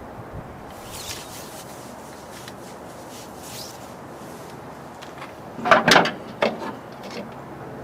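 Hand-handling of HEI distributor parts: a few faint clicks, then a louder burst of rubbing and scraping about six seconds in, over a steady background hiss.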